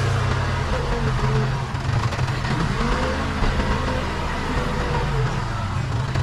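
Case 580 Super K backhoe loader's diesel engine running steadily under working load, with a higher whine that rises and falls every second or so.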